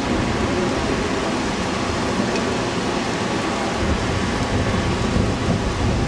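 Heavy wind-driven rain and strong storm wind of a violent thunderstorm: a dense, steady rush with a low, uneven rumble underneath.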